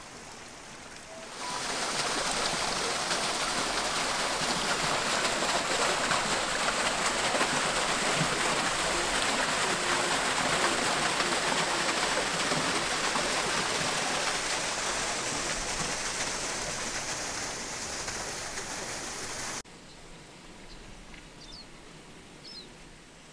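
Rushing water from a small waterfall, a steady hiss that starts suddenly about a second and a half in and cuts off suddenly near the end. It leaves a quieter outdoor background with a few faint bird chirps.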